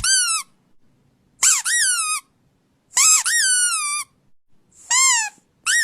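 A squeaky toy squeaking about five times in a row. Each squeak is high-pitched, lasts under a second, and rises then falls in pitch, with short gaps between them. The last squeak, near the end, is longer and holds its pitch.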